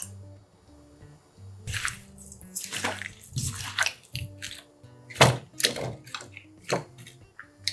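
Soft instrumental background music, with short wet squelching and scraping bursts over it from seasoned radish cubes being spooned into a stainless-steel bowl and mixed by a gloved hand. The loudest burst comes a little past the halfway point.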